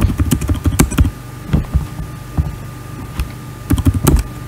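Typing on a computer keyboard: irregular runs of key clicks, quickest in the first second and then in short scattered bursts, over a low steady hum.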